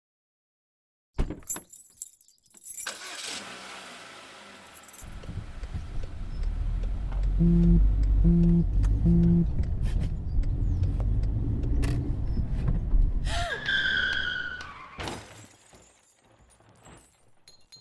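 Sound effects: a car engine and road noise, with a phone vibrating in three short buzzes midway as a text notification arrives. Near the end comes a high falling squeal and then a car crash.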